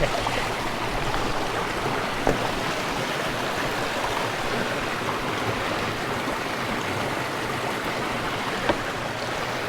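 Rushing stream water flowing steadily, with two brief knocks, one about two seconds in and one near the end.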